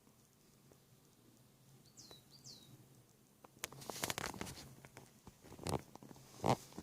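A woman's phlegmy morning coughs from catarrh: a cluster of coughs about halfway through, then two more single coughs, the last the loudest.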